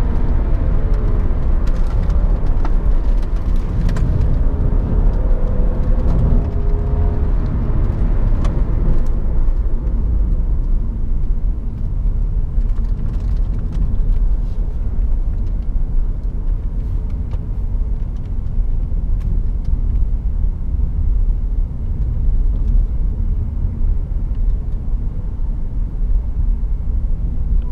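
Cabin sound of a 2012 BMW 535i F10 on the move: its turbocharged straight-six and tyre and road noise as a steady low rumble. The engine note shifts in pitch over the first nine seconds or so, then settles into an even cruising rumble.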